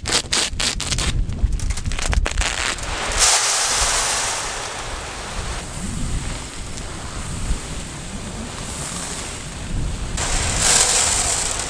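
A knife slits the bottom of a woven bulk bag in a quick series of cuts. Then prilled lime pellets pour out of the bag into a plastic fertilizer spreader hopper with a steady, rain-like hiss that swells about three seconds in and again near the end.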